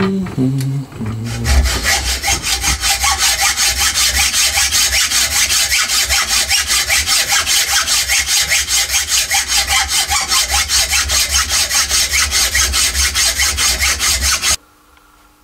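Metal being sawn or filed by hand: fast, even rasping strokes, about five a second, that cut off suddenly near the end.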